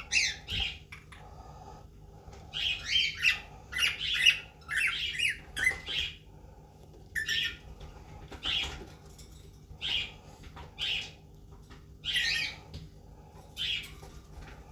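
A pet animal giving about a dozen short, high-pitched calls, close together in the first half and spaced out in the second half.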